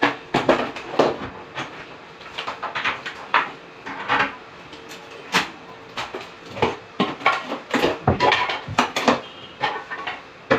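Irregular clicks, taps and knocks of wooden wardrobe doors and their fittings being handled and adjusted, the doors bumping and clicking against the cabinet frame.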